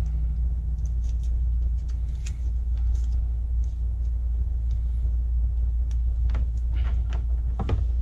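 Steady low background rumble, with faint scattered rustles and light clicks from wires and blue tape being handled.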